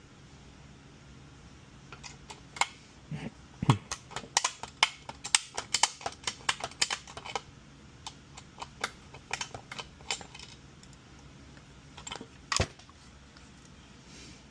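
Typing on a computer keyboard: a quick, uneven run of key clicks lasting about five seconds, with one soft knock among them, then a few scattered clicks and a single sharper tap near the end.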